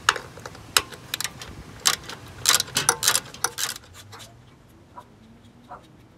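Socket ratchet clicking in quick, irregular runs as a bolt is turned. The clicks thin out to a few light ones near the end.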